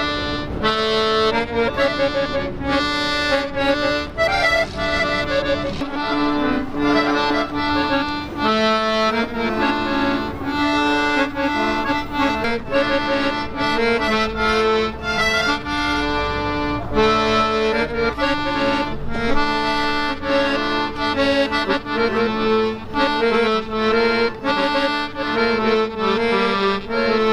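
Piano accordion playing a melody over sustained low notes, without a break.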